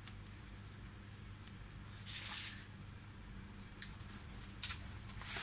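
Large sheet of brown kraft pattern paper rustling as it is slid across the worktable, a brief swish about two seconds in, followed by a few light taps.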